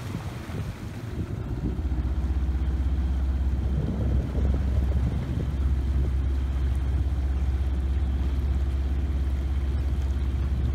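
A boat engine running with a steady low drone. It eases off briefly at the start, then comes back up and holds steady.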